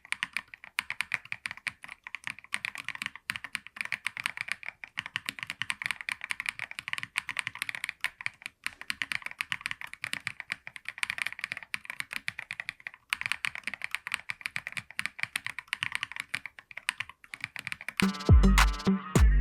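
Fast, continuous typing on a KiiBOOM Phantom 68 mechanical keyboard with stock Crystal switches: a dense run of keystrokes with a few brief pauses. Near the end the typing stops and electronic music with a heavy bass beat comes in.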